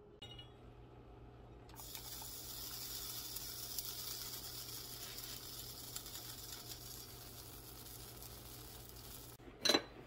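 Pot of cheesy potato soup simmering on an electric stovetop, a steady bubbling hiss over a low hum, starting about two seconds in. A sharp clink near the end.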